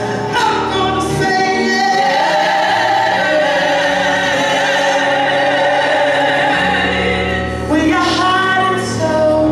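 A woman sings a gospel song into a microphone over instrumental accompaniment with a steady bass line, holding one long note through the middle.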